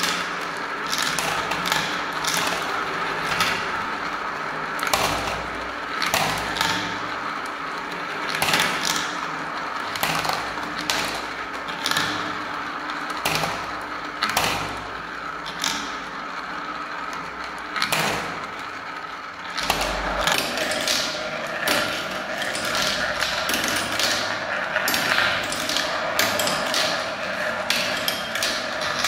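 Glass marbles and small plastic balls rolling around a clear plastic funnel bowl of a toy marble run: a steady rolling whirr with frequent sharp clicks as they knock together and drop through the centre hole. About two-thirds of the way in the steady sound changes in tone.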